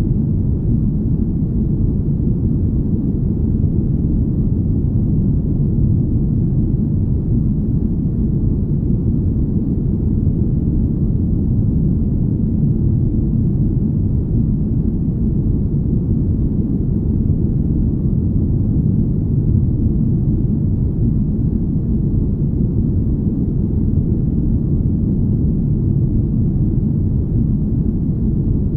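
Deep, smooth rumble of a spaceship-cabin ambience: steady low noise that never changes, with no higher sounds in it.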